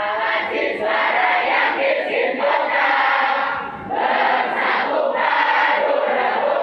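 A large group of students chanting together in unison, phrase after phrase, with a brief pause a little under four seconds in.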